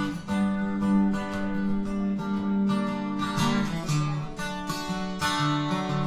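Steel-string acoustic guitar strummed solo: a song's introduction, chords ringing between the strokes.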